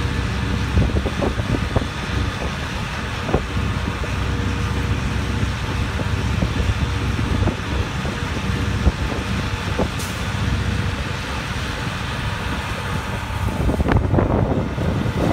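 Steady low rumble of slow city traffic on a snow-covered street. Near the end a police car drives close past, its tyres rushing louder through the snow and slush.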